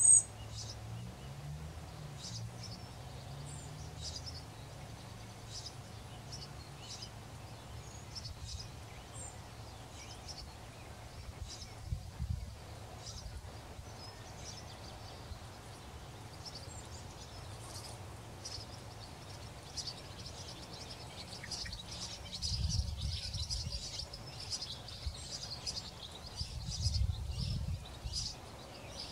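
Small birds chirping, short high calls scattered throughout, with one loud chirp right at the start. Under them runs a low outdoor rumble that swells twice near the end.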